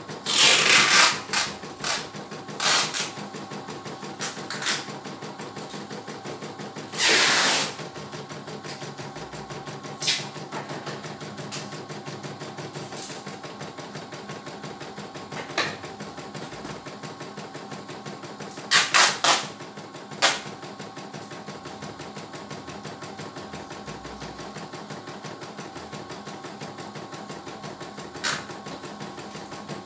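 CNY E900 computerized embroidery machine stitching a design, its needle running in a steady fast rhythm. A few loud, brief bursts of noise break in, the strongest about a second in, about seven seconds in, and around nineteen to twenty seconds.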